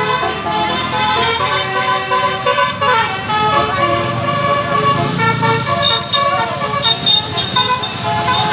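Bus telolet horn: the multi-tone musical horn set of an Indonesian bus playing a quick tune of stepping notes, several pitches sounding at once, over the low rumble of the bus engine, which swells about five seconds in.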